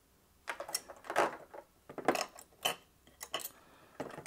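Metal parts of an opened hard drive clicking, clinking and scraping as they are handled and pried at by hand, in an irregular run of sharp clicks that starts about half a second in.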